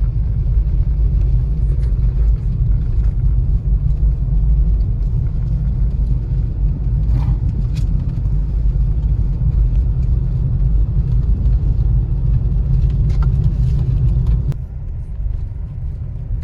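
Steady low rumble of a car being driven, road and engine noise. The rumble drops suddenly near the end, with a few faint clicks along the way.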